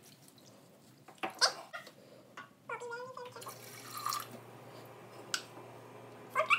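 Water poured from a small measuring cup into a stainless-steel pressure cooker, splashing for about a second a little after the middle, amid light knocks of the cup and jug. A short high-pitched call is heard just before the pour.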